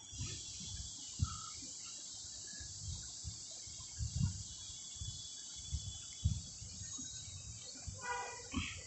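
Faint outdoor background: a steady high hiss with scattered soft low bumps, and a short pitched call near the end.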